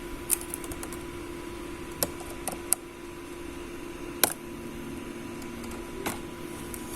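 Small sharp plastic clicks and taps, about six scattered through, the sharpest about four seconds in, as the laptop's keyboard and touchpad ribbon-cable connector latches are flipped open and the cables handled, over a steady background hum.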